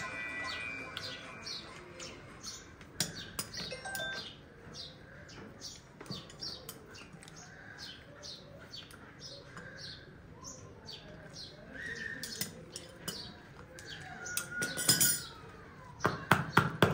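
Small birds chirping over and over, a few short chirps a second, with a few sharp knocks, several of them in quick succession near the end.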